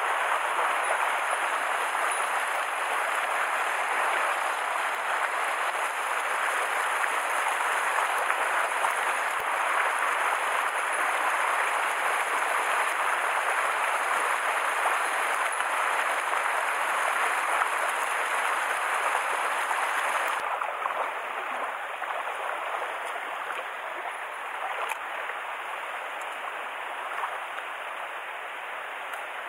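Mountain stream water rushing over rocks, a steady dense hiss of flowing water; about twenty seconds in it suddenly becomes a little quieter.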